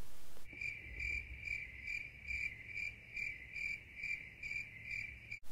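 Cricket chirping sound effect: a high chirp repeating about twice a second. It starts abruptly about half a second in and cuts off sharply near the end, the way the stock 'awkward silence' crickets are edited in.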